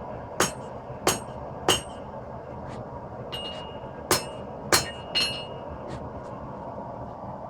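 Hammer blows on 5160 spring steel over an anvil during knife forging: three strikes about half a second apart, a pause of two seconds, then three more, each with a short metallic ring. A steady background noise runs beneath.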